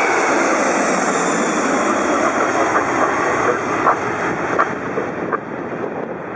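Boeing 747-400 jet engines at takeoff power as the airliner climbs away just after liftoff, a dense, steady roar that slowly fades.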